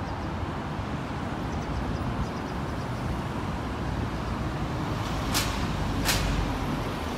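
Steady low rumble of city background noise, with two short sharp hisses about five and six seconds in.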